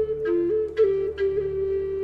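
Background music: a flute playing a slow melody of a few held notes, stepping between two or three pitches, over a low steady drone.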